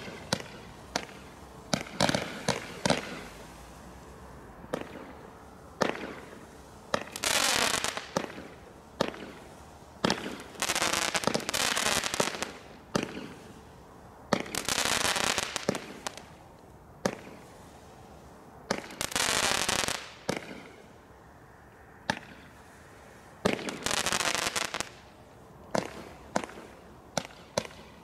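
Consumer fireworks firing into the night sky: a run of sharp bangs and cracks, with five hissing rushes of about a second each spread through.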